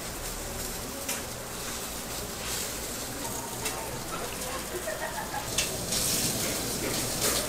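Food frying in hot oil: a steady sizzle, with a few sharp clicks scattered through it and a louder stretch near the end.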